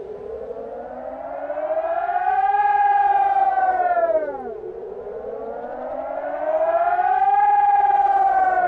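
Air raid siren recording played in reverse: a wailing tone that climbs slowly, holds at the top, then drops away quickly, twice in a row about four and a half seconds apart.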